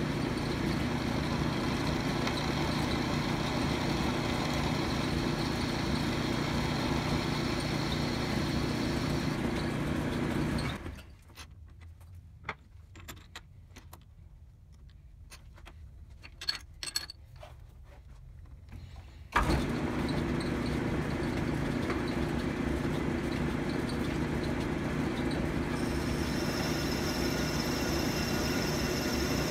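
Metal lathe running with a steady mechanical hum while a tool chamfers and radiuses the end of a steel bolt blank. About eleven seconds in the running drops away to a quiet stretch with a few light clicks, then starts again abruptly eight seconds later. Near the end a higher-pitched whine joins in.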